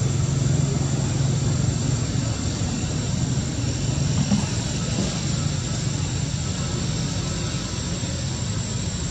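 Steady low mechanical hum with a faint high-pitched whine above it.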